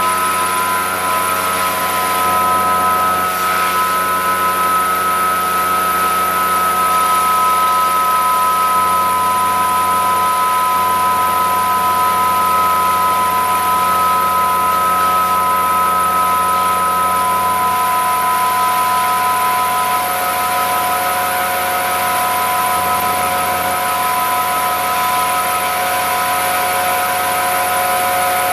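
Vacuum truck's pump drawing liquid up a suction hose out of a floor pit: a loud, steady drone with a high whine of several steady tones. The whine changes pitch about two-thirds of the way through.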